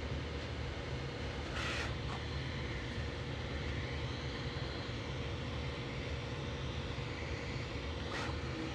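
Bambu Lab A1 mini 3D printer running: a steady low fan-and-motor hum, with brief higher whirs of the print head moving about two seconds in and near the end.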